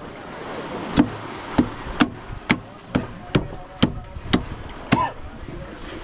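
Knife chopping on a cutting board, a sharp knock about twice a second.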